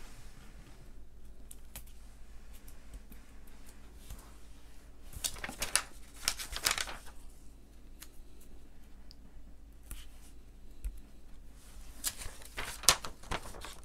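Crackly crinkling of a thin plastic sheet as dried glitter-glue heart shapes are peeled off it, in two bursts near the middle and near the end, with light ticks of handling in between.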